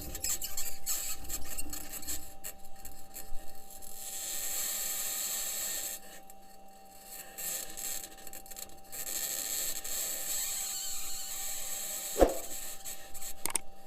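Grinding, scraping and rasping of the Perseverance rover's metal wheels rolling over rock while driving on Mars, with a steady thin whine underneath and one sharp click about twelve seconds in.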